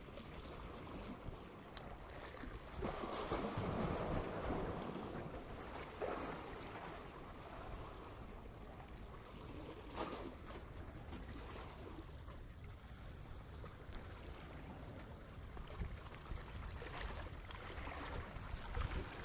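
Low surf washing on the beach, with wind noise on the microphone; the water sound swells louder about three seconds in.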